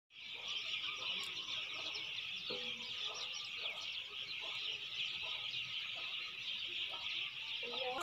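Dense chorus of many small birds chirping continuously, with a few short, low clucks from an Aseel rooster scattered through it.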